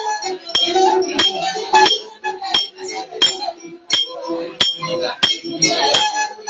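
Batak uning-uningan ensemble: plucked hasapi boat lutes and a sulim bamboo flute playing a melody over a steady clinking beat struck on glass or metal.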